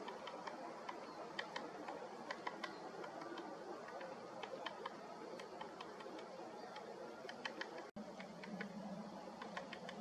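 Great spotted woodpecker pecking at a cone wedged in its bark 'forge' to get the seeds out: a run of light, sharp taps coming irregularly, several in quick clusters, over a steady background hiss.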